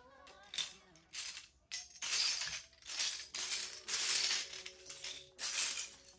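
Loose plastic LEGO bricks clattering and clinking in a pile as a hand rummages through them, in a quick run of short rattling bursts that get busier and louder about two seconds in.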